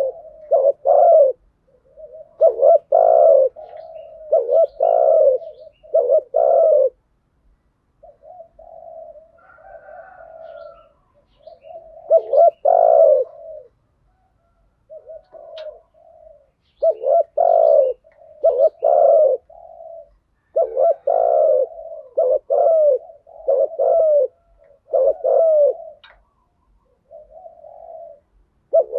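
Spotted doves cooing: repeated groups of deep coos with short pauses between them, louder calling phrases mixed with softer, lower coos. This is the courtship cooing and calling that keepers play to rouse a decoy dove.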